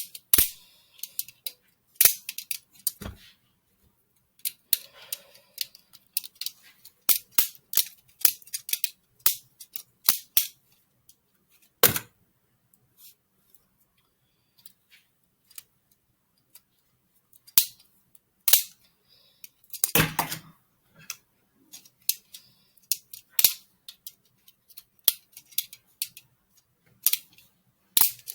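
Homemade LEGO balisong being flipped, its plastic handles clicking and clacking against each other in irregular runs of sharp taps with short pauses. About twenty seconds in there is a longer, louder clatter.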